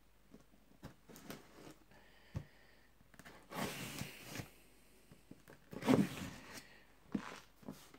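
A cardboard shipping box being opened: a knife drawn along the lid's edge, then the lid worked loose and pulled up by hand, with scraping and rustling of cardboard in short bursts, the loudest about six seconds in.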